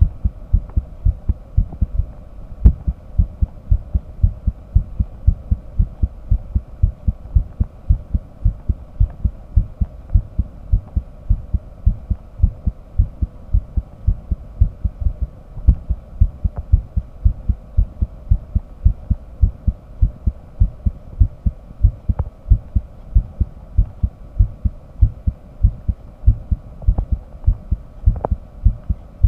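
Human heartbeat picked up by a microphone pressed to the chest: low lub-dub thumps in a steady rhythm. A faint steady hum runs underneath.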